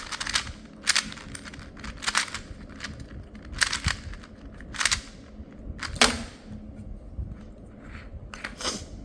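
A 2x2 plastic speed cube being turned by hand: a series of sharp clacks at irregular spacing, some in quick pairs, as the layers are twisted during a timed solve.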